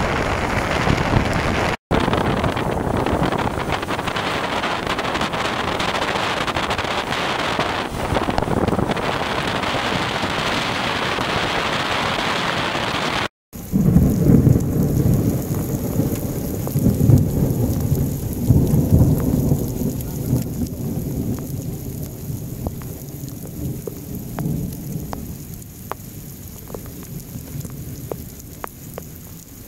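Rainstorm: a steady, dense rush of rain for the first thirteen seconds or so. After a sudden break, a lower, uneven rumble with scattered raindrop ticks takes over and slowly fades.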